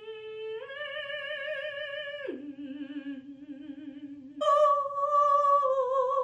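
A woman singing long held notes with heavy, exaggerated operatic vibrato, mimicking an intimidating classically trained singer. The line steps up, drops to a lower note, then jumps back up to a louder high note.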